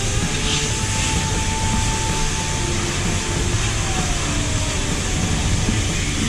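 Heavy engine running loud and steady, with a whine that holds and then slides down in pitch about three and a half seconds in.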